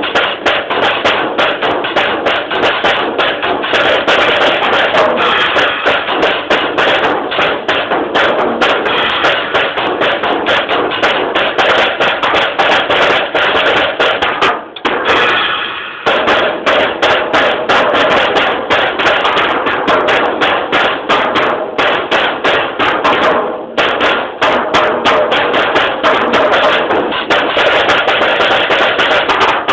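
Drum kit played in a fast, dense solo, recorded on a mobile phone's microphone so it sounds harsh and crowded. The playing breaks off briefly about halfway through and again about two-thirds of the way in.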